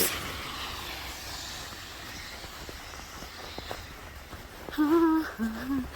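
Footsteps through deep snow, a few soft faint steps over a steady background hiss, and a short wordless hum or grunt from a woman's voice about five seconds in.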